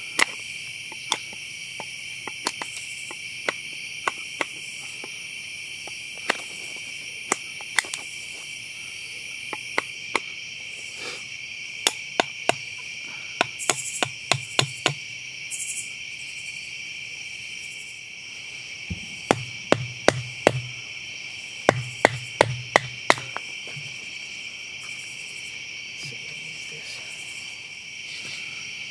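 Pine sticks being split by striking the back of a knife with a wooden baton: sharp wooden knocks, scattered at first and then in quick runs. Under them runs a steady night-time insect chorus.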